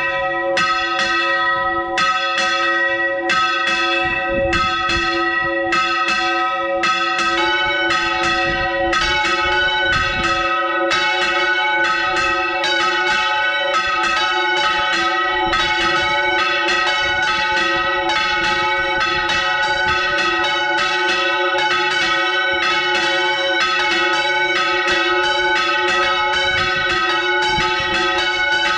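Church bells hung on wooden yokes being swung full circle by rope, each swing ringing out over the hum of the previous strokes. The strokes come about once a second at first, then closer together, roughly two a second, from about a third of the way in.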